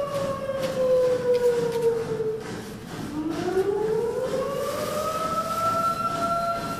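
Air-raid-style siren wail. Its tone slides slowly down and dies away about three seconds in, then winds back up and holds a steady pitch.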